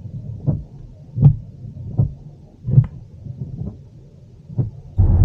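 Soft low thumps repeating about every three-quarters of a second inside a stationary car. About five seconds in, the steady low rumble of the car driving on the road comes in abruptly.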